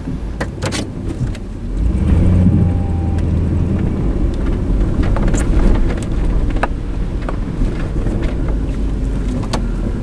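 Engine of a snowplow-equipped SUV running under load as it backs out of and works against a deep snowbank. It runs louder for a couple of seconds about two seconds in, with scattered clicks and knocks over the rumble.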